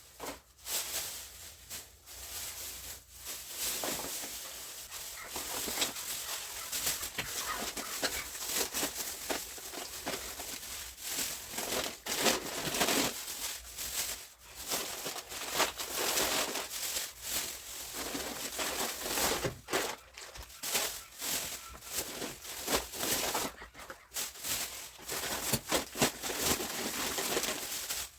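Plastic grocery bags rustling and crinkling while shopping items are taken out and set down, with irregular knocks and taps throughout.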